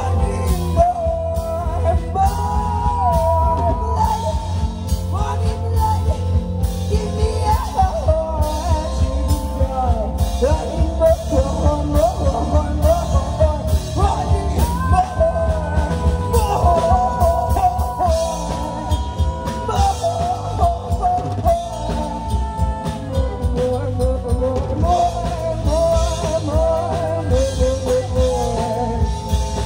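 Live rock band playing through an outdoor PA: women's voices singing a melody over guitar and a drum kit keeping a steady beat.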